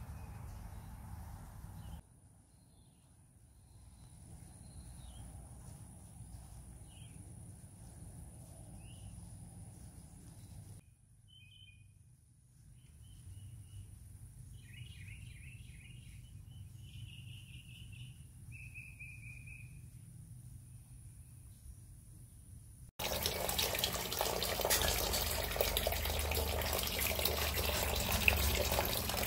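Birds chirping and singing faintly in short phrases, then, after a sudden cut about two-thirds of the way through, a steady splashing stream of water from a stone wall fountain's spout, which becomes the loudest sound.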